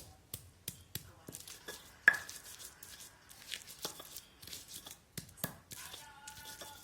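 Spices being ground by hand with a manual grinder: irregular knocks and short scrapes of the grinding tool on the spice paste, with one sharper knock about two seconds in.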